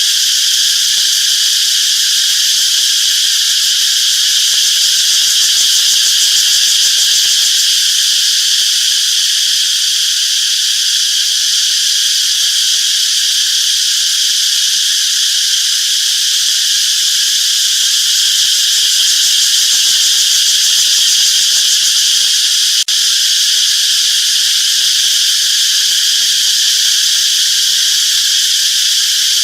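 A dense, steady chorus of singing insects: a continuous high-pitched buzzing drone that does not let up, with a single faint click near the end.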